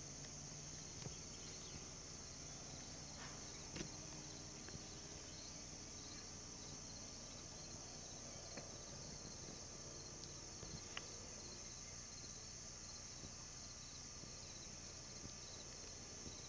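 A faint, steady high-pitched chorus of insects in summer vegetation around a lake, even throughout. There are a few faint clicks, the loudest about four seconds in.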